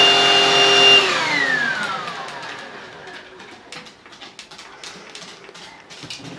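Stick vacuum cleaner running with a steady whine, then switched off about a second in, its motor whine falling in pitch as it spins down. Scattered light ticks and taps follow.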